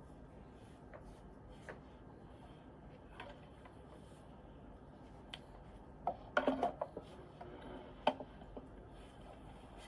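A few quiet computer keyboard keystrokes: scattered single taps, then a quick run of several clicks about six seconds in and one more at about eight seconds.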